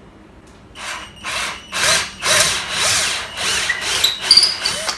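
12 V Workzone cordless drill boring a 10 mm twist bit into a wooden board. It starts about a second in and runs in several short bursts, its pitch rising and falling as the bit cuts through the wood.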